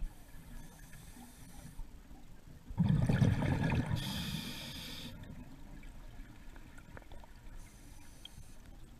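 Scuba diver breathing underwater through a regulator: one loud gurgling rush of exhaled bubbles about three seconds in, with a quieter hiss just before and after it.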